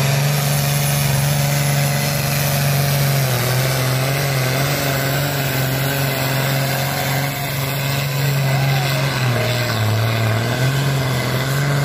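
Loud engine of a pulling tractor running hard. Its pitch sags about three seconds in, and again near the end, before climbing back.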